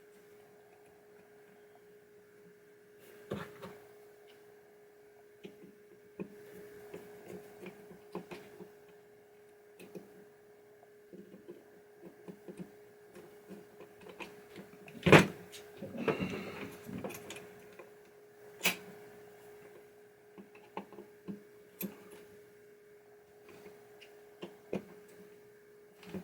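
Scattered small clicks and taps of parts being handled and fitted while reassembling a pinball drop target assembly with its leaf switches, with one sharp knock about fifteen seconds in followed by a brief rattle. A steady hum runs underneath.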